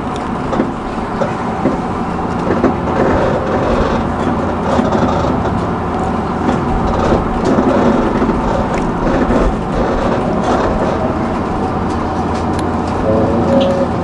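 Passenger train running, heard from inside the car: a steady rumble with scattered light clicks.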